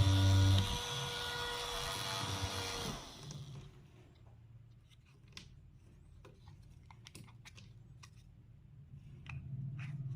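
Small electric mini fan running with a steady whir, switched off about three seconds in, its pitch falling as it spins down. There is a low thump at the start, and after the fan stops come scattered handling clicks and taps.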